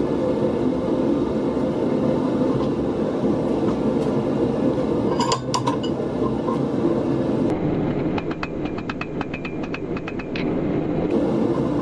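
A steady low workshop drone, with a few sharp metallic clinks about halfway as the glowing screw billet is worked in the vise. About two-thirds of the way in, a quick run of light hammer taps on the hot bar on the anvil, about six a second for some three seconds.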